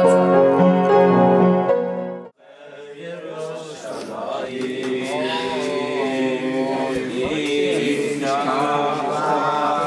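Piano chords played, cutting off suddenly about two seconds in. Then a group of boys singing together, the singing swelling and carrying on.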